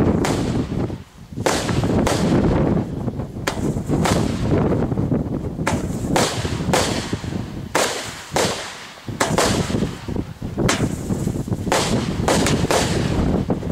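Consumer fireworks going off: more than a dozen sharp bangs and cracks at irregular intervals, over a continuous dense rumbling noise.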